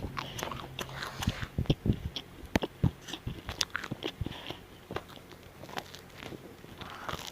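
A person chewing a bagel close to the microphone: irregular small clicks and crunches of the mouth working.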